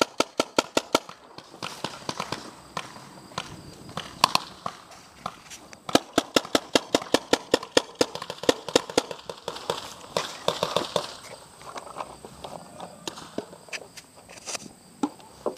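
Paintball markers firing in rapid strings of sharp pops, about eight shots a second, in bursts at the start and again midway, with scattered single shots between.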